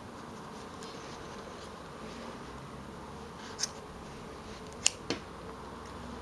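Scissors snipping through the wool yarn loops of a pompom: three short snips, one about three and a half seconds in, then two close together about a second later.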